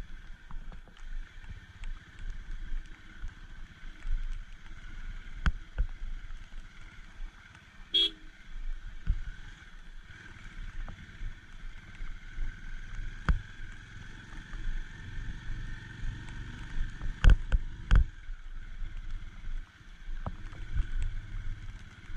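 Motorcycle engine running at low speed along a rutted, muddy dirt road, with scattered sharp knocks and rattles from the bike jolting over bumps; the loudest come about three quarters of the way through. A short horn beep sounds about eight seconds in.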